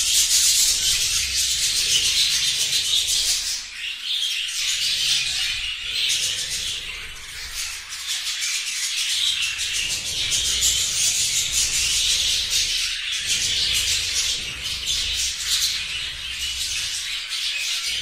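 A flock of budgerigars chattering and chirping continuously, many birds calling at once.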